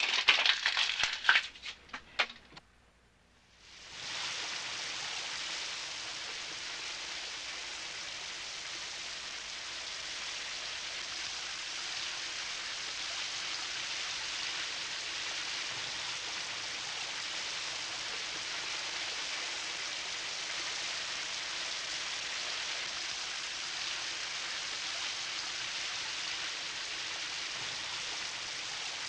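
A short run of sharp clicks and knocks, then about four seconds in a shower head starts spraying water with a steady hiss that runs on unbroken.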